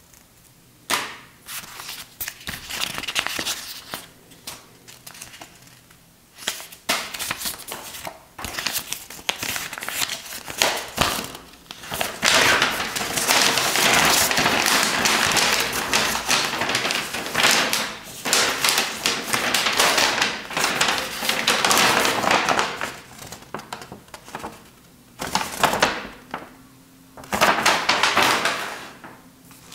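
Paper instruction leaflet rustling and crinkling as it is unfolded and handled, with scattered sharp clicks from small parts being handled. The rustling is densest in the middle and breaks off briefly a few times near the end.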